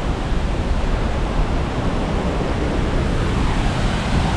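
Waterfall rushing steadily: a constant, even noise with a heavy low rumble.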